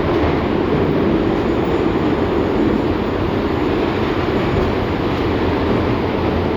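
LVS-2009 tram running along the track: a steady rumble of wheels on rails and running gear.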